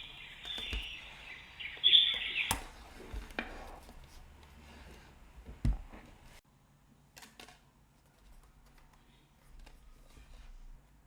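A sunrise alarm clock's built-in nature sound of chirping birds plays through the clock's speaker and cuts off suddenly after about two and a half seconds. A few sharp clicks follow, the loudest about five and a half seconds in.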